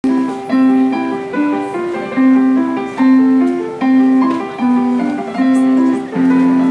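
Portable digital piano played with both hands: a melody over sustained chords, with new chords struck about every 0.8 seconds.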